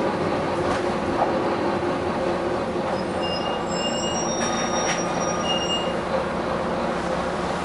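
Steady rumbling of a running vehicle, with several short high-pitched squeals from about three to six seconds in.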